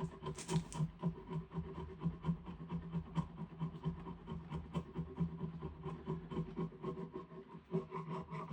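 Hand scraping or rasping on a piece of diamond willow, in quick back-and-forth strokes of about three or four a second.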